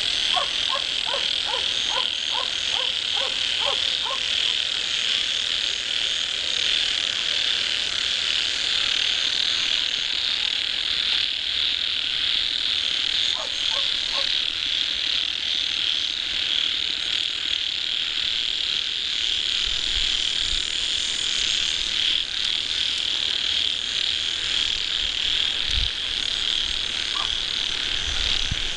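Steady, loud, high-pitched chorus of insects and frogs in paddy fields. A short run of about eight quick croaks comes in the first few seconds, and three more near the middle.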